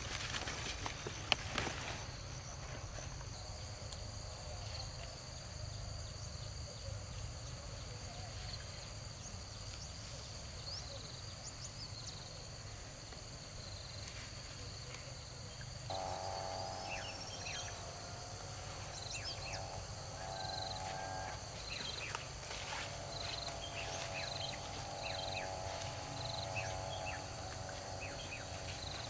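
Steady high-pitched insect chorus with scattered short chirps. About halfway through, a lower pulsing trill joins in.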